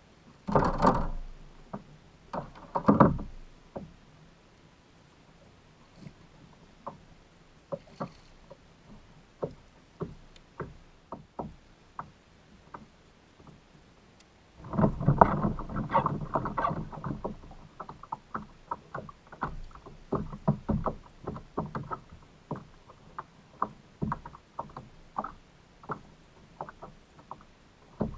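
Water splashing and sloshing around a fishing kayak, with two strong splashes near the start and a longer spell of splashing about halfway through, amid many light knocks and ticks.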